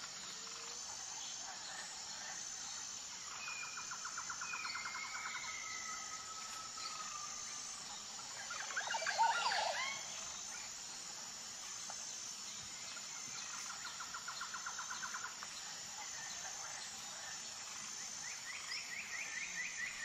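Outdoor ambience of birds calling and trilling over a steady high-pitched insect drone. Rapid pulsed trills come a few seconds in and again around fourteen seconds, with a louder burst of calls about nine seconds in.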